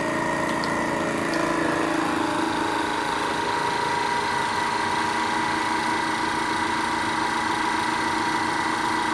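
Mueller vacuum sealer's pump running steadily, drawing the air out of a sealer bag; its tone changes about two seconds in as the bag pulls tight around the food.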